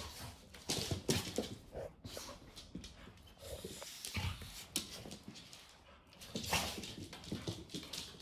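An American Bully puppy and an adult American Staffordshire Terrier play-fighting, making dog noises and whimpers in irregular bursts, with sharp clicks and scuffles from their paws on a hard floor.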